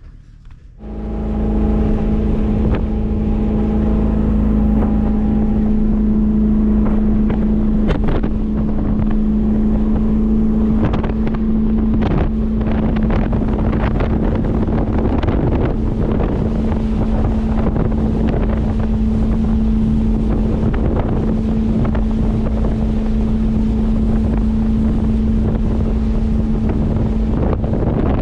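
Motorboat engine running underway at a steady pitch, with wind buffeting the microphone and water rushing. It sets in abruptly about a second in.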